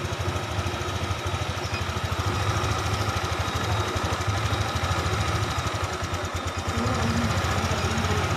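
Motorcycle engine idling steadily with a fast, even beat.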